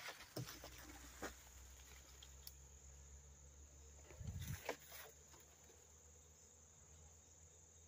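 Near silence with a faint, steady, high-pitched chirring of insects. A few soft knocks and a brief rustle come about four to five seconds in.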